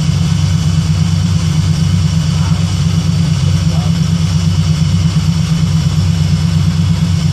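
Terminator Cobra supercharged 4.6-litre DOHC V8 idling steadily while its cooling system is burped of air.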